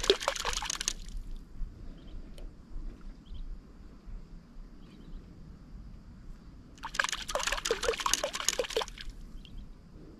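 Water splashing at the surface where a fishing line and float go in: a short splash at the start, and a longer one of about two seconds some seven seconds in.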